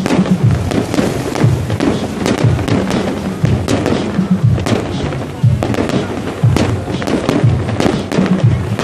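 Fireworks display: a steady run of bangs and crackling bursts, with music playing alongside.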